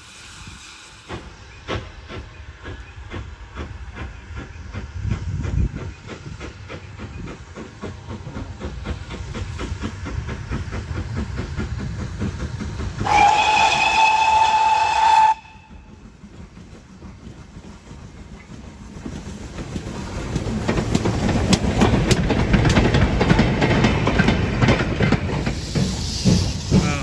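GWR small prairie 2-6-2 tank engine working, with rhythmic chuffing building steadily. About halfway through, a steam whistle blows for about two seconds and cuts off abruptly. Toward the end, the hiss of steam and the rattle of the train grow louder.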